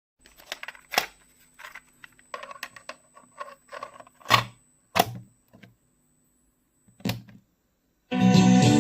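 Plastic clicks and clunks of a Panda W10 portable cassette player being handled, with four sharper clacks among many small ticks, typical of its keys and cassette door being worked. Music starts loudly near the end.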